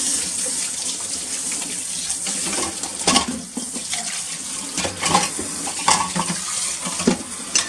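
Kitchen tap running water into the sink as dishes are rinsed. Bowls and cups knock and clink against each other several times.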